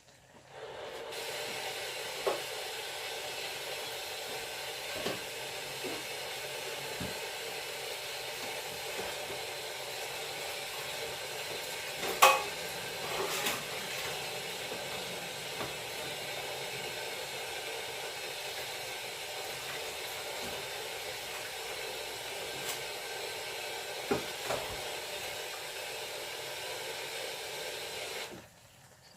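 Food sizzling steadily in a pan, with a few clinks and knocks of a utensil against cookware, the loudest about twelve seconds in.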